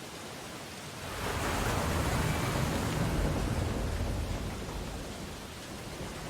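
Ocean waves on a beach: a wave surges in about a second in with a rush and low rumble, then washes back and fades over the next few seconds.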